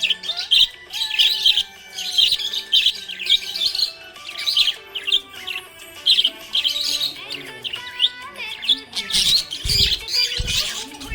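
Budgerigars chirping and warbling in quick, busy bursts, with music and its held lower notes underneath. A few low thumps come near the end.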